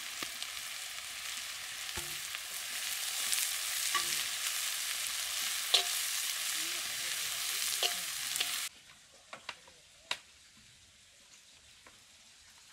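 Onions and green chillies frying in hot oil in a kadai, sizzling steadily, with sharp knocks of the stirring spoon about every two seconds. The sizzle stops suddenly about two-thirds of the way through, leaving a few faint taps.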